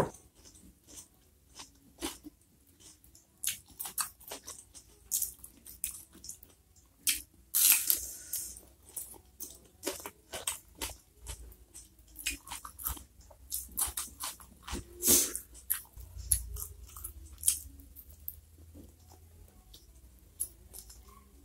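Close-up eating sounds: crisp crunching bites and chewing of raw vegetables dipped in sambal, in many short, sharp snaps.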